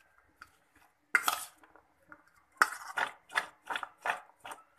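Chopped raw vegetables tossed in a metal bowl to mix them: one shake about a second in, then a quick run of shakes, about three a second, from about halfway through.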